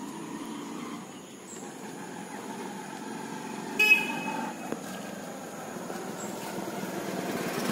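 A brief vehicle horn toot about four seconds in, over faint outdoor background noise.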